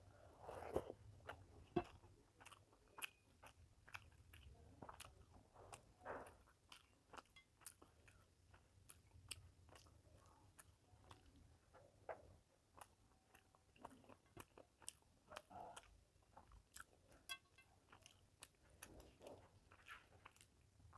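Faint close-up eating sounds of a person eating rice and fish curry: soft chewing with many small sharp mouth clicks scattered throughout.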